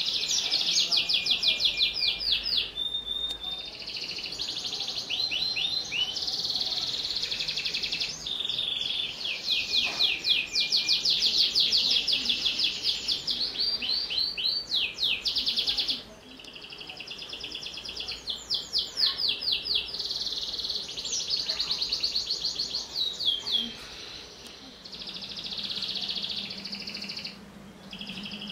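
Domestic canary singing a long, varied song: fast trills of repeated notes and rising and falling sweeps, broken by a few brief pauses.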